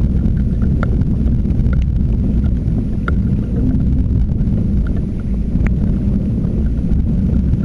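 Wind buffeting the microphone: a loud, steady low rumble, with a few faint scattered ticks.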